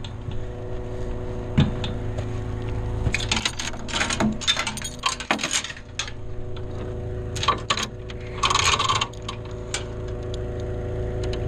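Metal tow chain clinking and rattling in several bursts as it is handled and hooked to a grain auger, over an engine idling steadily.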